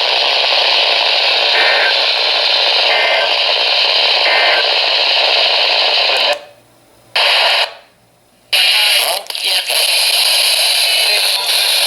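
Loud, steady radio static on a received EAS alert broadcast, with three faint short data bursts about a second apart in the first few seconds. About six seconds in the signal cuts out twice, briefly, then the static returns.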